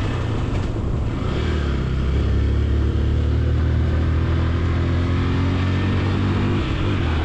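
Motorcycle engine running steadily while riding, picking up a little speed about two seconds in.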